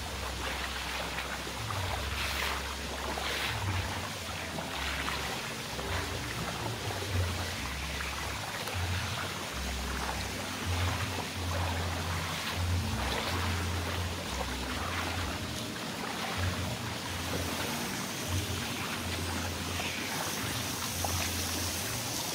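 Swimming-pool water trickling and splashing steadily, with a low rumble coming and going underneath.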